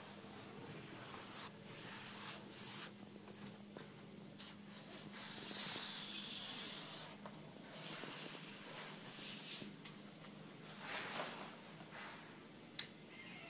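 Fabric rubbing and scuffing as a textile graphic face is pressed into the edges of a Texflex display frame, with a faint steady hum underneath. A single sharp click comes near the end.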